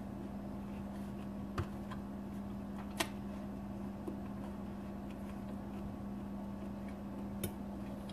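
A steady low hum in a quiet room, with a few faint clicks at irregular moments.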